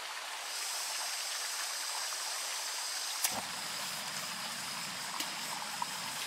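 Gas hissing steadily from a canister camping stove as its valve is opened. About three seconds in, a click, and the burner lights with a low rushing flame that keeps burning. A stream runs steadily underneath.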